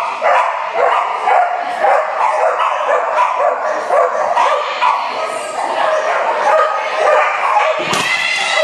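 Many dogs barking and yipping over one another in a continuous din, with a sharp thump about eight seconds in.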